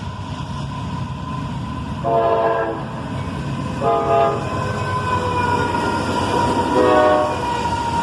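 Diesel locomotive air horn sounding three short blasts, the middle one shortest, over the steady rumble of a passing freight train: a horn salute from the engineer of a pair of CSX AC44CW locomotives.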